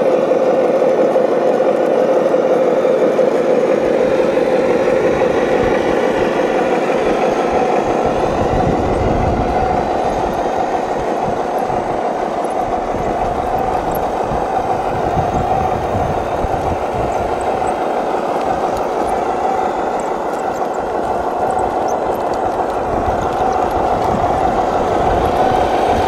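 Radio-controlled scale model MAZ-537 8x8 truck (Cross-RC BC8 Mammoth) driving under load, a steady whine from its drive that steps up in pitch about a third of the way through, with an uneven low rumble underneath.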